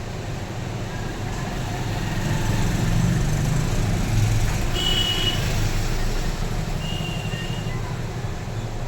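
A motor vehicle passing on the road: a low rumble that grows louder over the first few seconds and fades again. Short high beeps come about five and seven seconds in.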